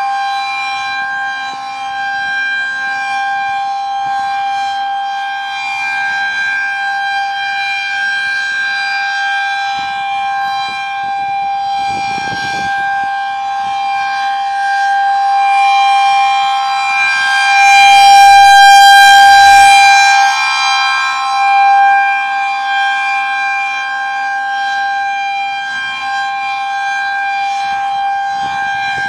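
Federal Signal 2001-SRNB rotating outdoor warning siren sounding a steady single-pitch tone during a scheduled test. It grows loudest about two-thirds of the way through, then eases back.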